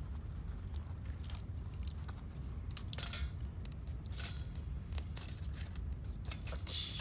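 Small wood fire crackling in a mini fire pit, with irregular sharp pops and snaps, a few louder ones around the middle, over a steady low rumble.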